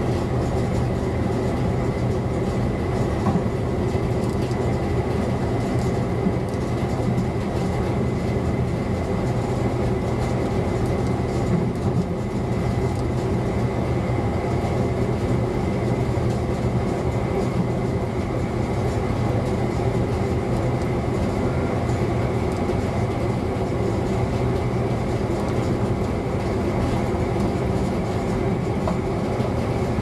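ČD class 854 diesel railcar running steadily along the line, heard from its driver's cab: the engine's even drone mixed with the rumble of wheels on rail, with a thin steady high whine over it.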